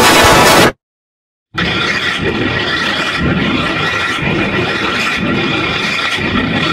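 Heavily distorted, effects-processed audio. A loud harsh noise cuts off suddenly under a second in, and after a short silence a droning sound follows, with steady high tones over a low rumble that pulses about once a second.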